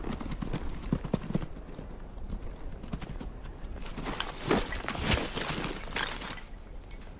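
Bharal hooves clattering on rock as the animals run across a steep slope, irregular knocks that grow into a louder, denser clatter about four seconds in.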